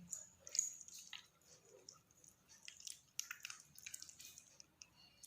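Hands squeezing ripe mango peels and seeds to press out the pulp: faint, irregular wet squishes and drips.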